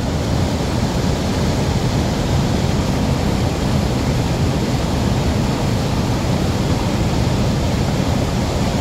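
Water pouring over a long concrete weir spillway and churning at its foot: a loud, steady, deep rush of falling water.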